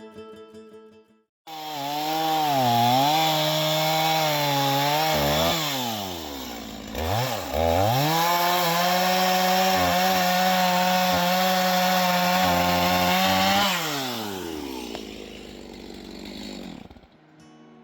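Small engine revving high under load, dropping back once midway, then rising again and winding down to a stop near the end.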